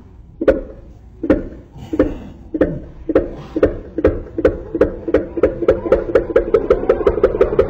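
A man imitating a motorcycle engine starting with his mouth, into a microphone. Single putts about a second apart speed up steadily into a fast, even putter of about five or six a second.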